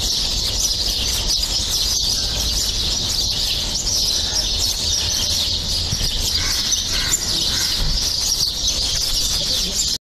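A recording of a bird calling, played back: continuous rapid, high-pitched chirping with no pause.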